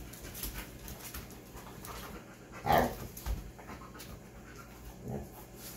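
A dog panting and sniffing as it searches for a scent, in quick short breaths, with one brief, louder sound a little before the middle.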